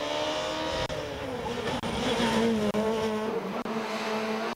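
Peugeot 207 S2000 rally car's two-litre four-cylinder engine running hard at speed on a tarmac stage, its note falling and rising several times.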